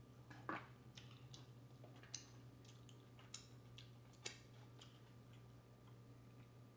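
Near silence with faint, scattered mouth clicks and lip smacks of someone eating french fries and chicken wings, the sharpest about four seconds in as he licks his fingers, over a steady low hum.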